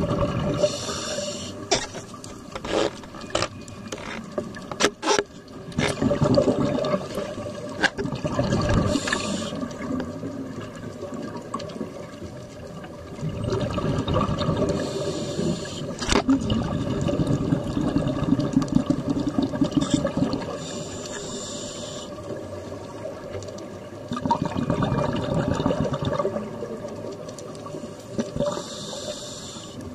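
Scuba regulator breathing underwater: a short hiss of inhaled air, then a long bubbling rush of exhaled air, repeating about every six to eight seconds. A few sharp clicks sound between two and five seconds in.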